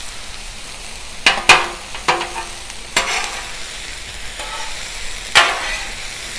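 Sliced vegetables sizzling in oil on a hot Blackstone flat-top griddle as they are tossed with two steel spatulas, with about five sharp metal clanks and scrapes of the spatulas on the griddle's steel plate. The loudest clanks come a little past a second in and again past five seconds.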